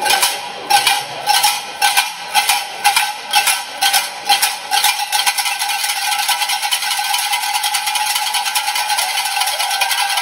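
Junkanoo cowbells clanging: sharp ringing strikes about two or three a second, which about halfway through turn into a fast, continuous shaking clatter.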